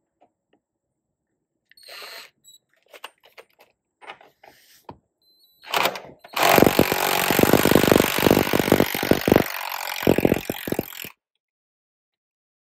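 Impact wrench hammering in a loud, rapidly pulsing run of about five seconds, driving the tie rod end nut tight on a tractor's steering linkage, then stopping abruptly. Before it, a few light clicks of tools being handled.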